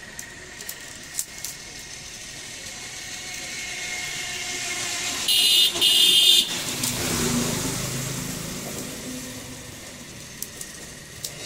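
A motor vehicle passes by, its sound swelling and fading away. About five seconds in come two loud, high-pitched blasts, the loudest sound here. There are a few faint clicks of bamboo strips being handled and woven.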